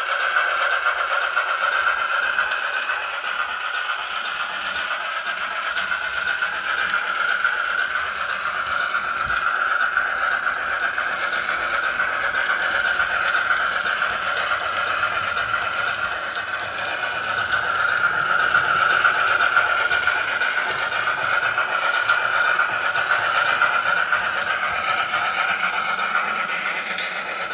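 Steam-locomotive sound from a Soundtraxx Tsunami sound decoder in an HO-scale brass Norfolk and Western 4-8-2 model, played through its small speaker: a steady hiss with a held tone in it, with no clear chuffing beat.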